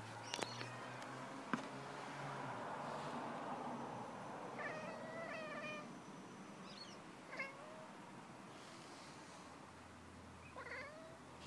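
Tabby cat giving short chirping meows at a magpie it is watching, the bird-directed chirp cats make at prey. There is a run of several quick chirps about halfway through, a single chirp a little later, and another near the end. A few sharp clicks come in the first two seconds.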